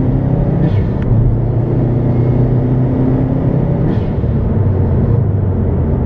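2018 Subaru STI's turbocharged flat-four engine and road noise heard from inside the cabin, cruising at a steady drone. The engine is running smoothly again after a misplaced fuel-pump O-ring was fixed.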